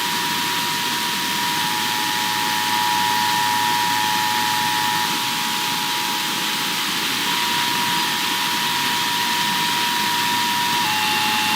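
Radio static: a steady hiss of weak off-air reception, with thin steady whistle tones near 1 kHz running through it and a second, slightly lower tone joining near the end.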